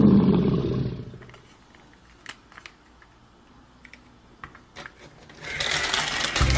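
Background music fades out. Then come a few light plastic clicks and taps as a toy car is handled and set down on a plastic toy track. A louder, even noise swells in near the end.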